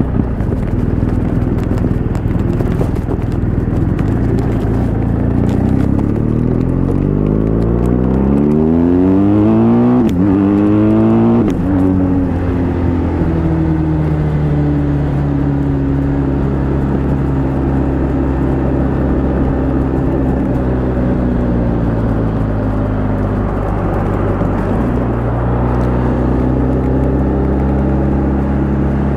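Twin-cylinder adventure motorcycle engine under way on the road, its pitch climbing steadily for several seconds as it accelerates, with two quick gear changes about ten and eleven seconds in. After that it runs at a steady lower pitch, eases off briefly, then picks up again near the end.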